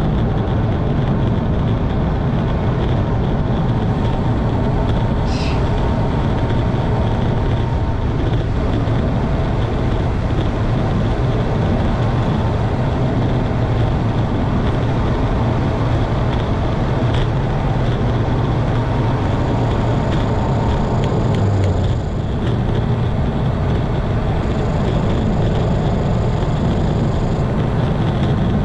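Wind rushing and buffeting over the camera microphone on a fast road-bike descent at about 30 mph, a loud steady low roar. There is a brief high squeak about five seconds in.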